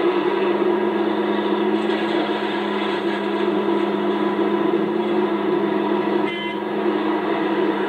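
Komatsu PC650-5 hydraulic excavator's diesel engine running steadily under load as the machine swings and dumps its bucket into a dump truck trailer. A brief high tone sounds about six seconds in.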